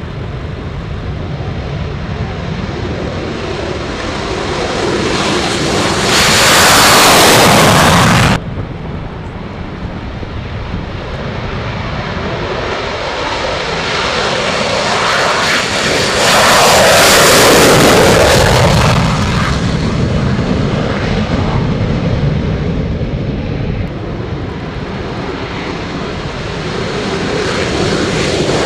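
Lockheed Martin F-22 Raptor fighter jets taking off: the twin Pratt & Whitney F119 turbofans run at full takeoff power in a loud, continuous jet roar. The roar swells twice as jets pass close, about 6 and 17 seconds in, and grows louder again near the end.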